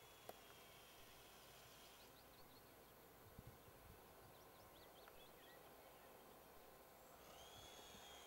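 Near silence outdoors, with scattered faint bird chirps and a faint steady high whine at the start that returns near the end.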